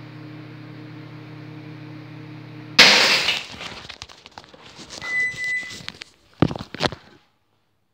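Microwave oven running empty with a neon lamp inside, humming steadily. About three seconds in comes a sudden loud crash like breaking glass, taken for the overheated glass turntable plate bursting, and the hum stops. A short high beep and some clattering follow.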